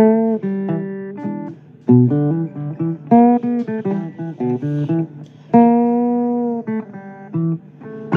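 Blues guitar played between sung lines: picked single notes and chords that ring out and fade, a few of them bent in pitch.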